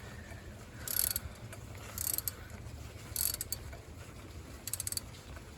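Socket ratchet on an extension clicking in four short bursts, about a second apart, as the thermostat housing bolts are run down.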